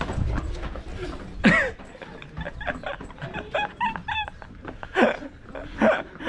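People's voices shouting and crying out during a footrace. A loud yell falls in pitch about a second and a half in, then comes a string of short, high-pitched cries and two more loud shouts near the end. A low rumble dies away after the first second and a half.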